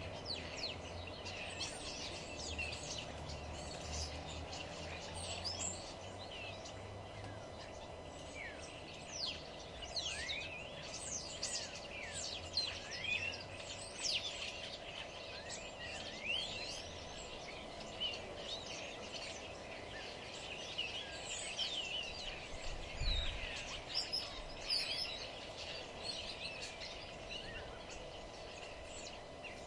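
Many small songbirds chirping and twittering at once, quick overlapping chirps and trills throughout, over a steady background hum. A brief low thump comes about two-thirds of the way through.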